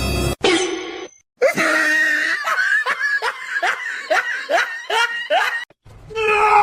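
A person laughing in a quick run of about eight pitched bursts, two to three a second.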